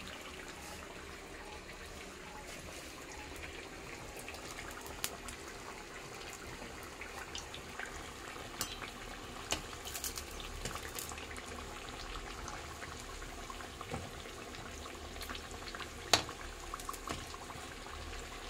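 Urad dal fritters deep-frying in hot oil in an iron kadai: a steady sizzle with scattered crackles and pops, and one sharper crack near the end.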